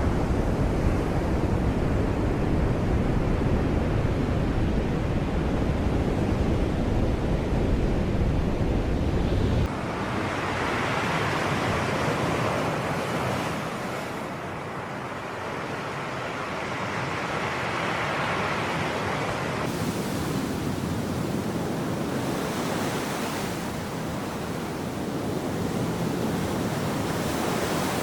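Sea waves breaking and washing on the shore, with a heavy low rumble of wind on the microphone for about the first ten seconds. The rumble stops abruptly, and after it the surf hiss swells and fades with each wave.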